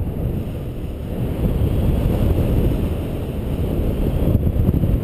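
Wind rushing over the microphone of a camera carried in paraglider flight: a steady, low rush of airflow with no breaks.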